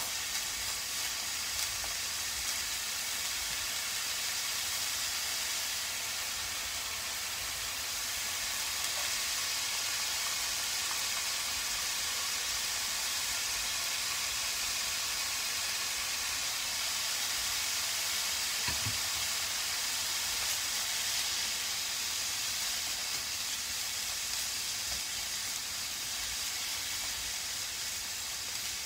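Julienned burdock root and carrot stir-frying in a frying pan: a steady sizzle while chopsticks toss the strips.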